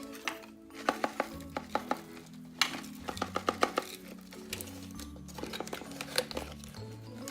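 Sharp clicks and crinkles of a plastic toy blind-bag package being handled and opened, some in quick runs, over background music with a steady bass line.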